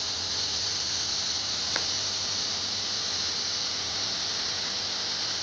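Waterfall rushing: a steady hiss of falling water, with a brief faint squeak about two seconds in.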